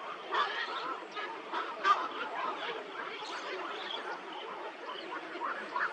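A flock of birds calling all at once, many short overlapping calls in a steady chatter, with one louder call about two seconds in.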